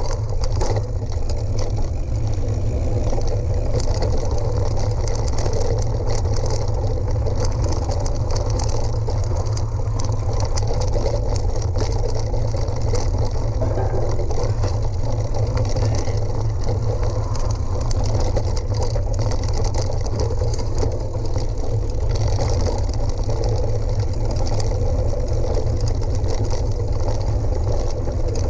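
Steady wind buffeting on a vehicle-mounted action camera's microphone, with tyres crunching and rattling over a gravel forest road.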